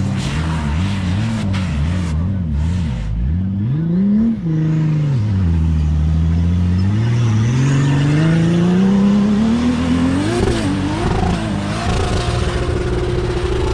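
An off-road SUV's engine revving hard on a sand-dune climb. The revs waver quickly up and down, rise and drop sharply about four seconds in, then climb long and steadily and hold high near the end.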